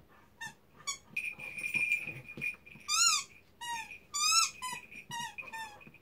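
A cocker spaniel chewing a squeaky toy: the squeaker lets out a string of short high squeaks, about eight, bunched more in the second half, with a thinner drawn-out squeal about a second in.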